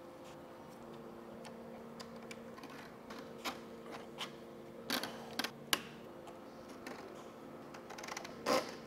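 Faint scattered clicks and taps as plastic parts and corrugated cable conduit are handled on an aluminium-extrusion 3D printer frame, over a steady faint hum, with a short rustle near the end.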